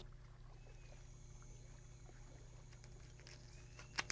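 Near silence: a low steady hum of room tone, broken by a couple of sharp clicks near the end.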